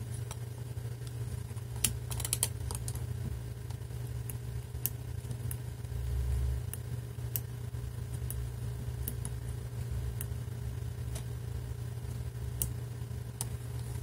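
Number wheels of a Masterlock 651 brass combination padlock clicking as they are turned one step at a time, a knife tip pressed against the dial, giving irregular single clicks about one or two a second. A dull thump about six seconds in.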